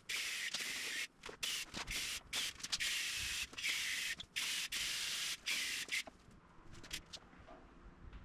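Compressed-air primer spray gun hissing in about ten short bursts, a fraction of a second to a second each, as a first light coat of primer goes onto metal stiffener tips. The spraying stops about six seconds in, followed by a few faint clicks.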